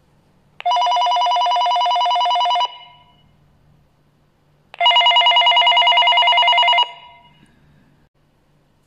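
KOMVOX GT60 walkie-talkie call alert: two bursts of a two-tone electronic ringing, each about two seconds long, sent when calling the other radio. The second burst pulses quickly.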